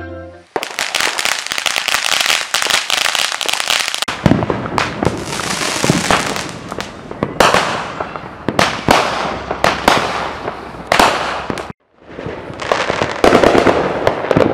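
Consumer fireworks going off: a dense crackling at first, then a run of sharp bangs and pops mixed with crackle. A brief gap comes about twelve seconds in, then more bangs and crackling.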